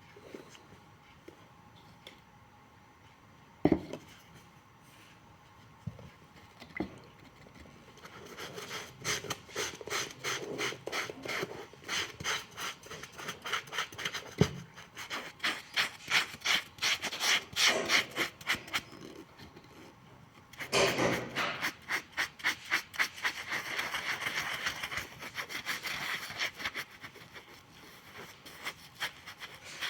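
Hand abrading of a shoe sole by sanding or rasping, in rapid back-and-forth rubbing strokes that start after a few quiet seconds and a couple of knocks, pause briefly and then resume. This is the surface roughening that prepares a sole for gluing.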